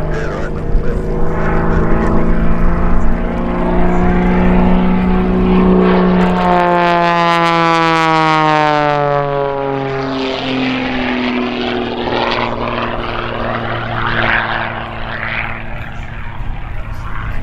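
Pitts aerobatic biplane's piston engine and propeller running. The pitch slides steadily down as it sweeps past, from about six to ten seconds in, then holds lower and a little quieter.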